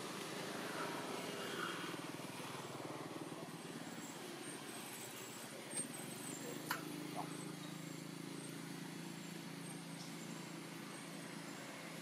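A steady low engine drone, with three short sharp clicks a little past the middle.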